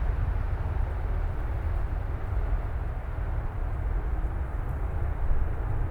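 Distant, steady low rumble of a Eurofighter Typhoon's twin EJ200 turbofans after a take-off at military power, without afterburner. The higher hiss thins a little toward the end.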